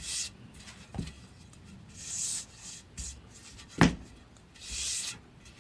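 Hands rubbing along a sanded oak axe handle in a few short scratchy strokes, with a light knock about a second in and a sharp knock just before four seconds in.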